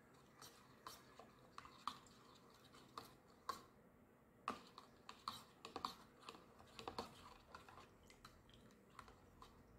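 Faint, irregular clicks and taps of a metal fork knocking against the inner container of a yogurt maker while stirring milk to dissolve yogurt starter powder.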